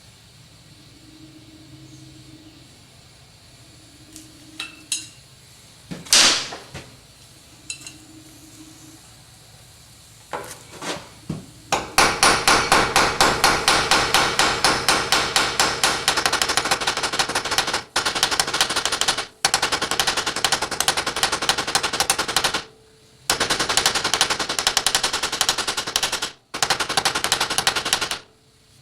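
A few scattered clicks and knocks of metal parts being handled, then a fast, even run of light hammer blows peening a steel rivet on a sheet-metal toy pop gun, several blows a second, broken by a few short pauses.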